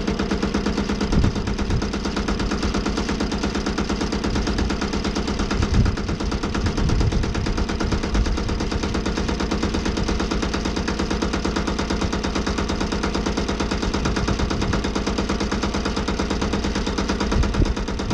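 Small gasoline engine of a Wood-Mizer LT15 sawmill running steadily with a fast, even exhaust pulse, warming up shortly after a cold start at about 37 °F.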